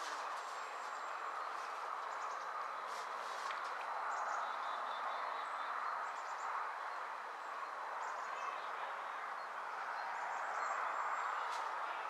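Outdoor pond ambience: a steady background hiss with scattered short, high bird chirps and a few faint clicks.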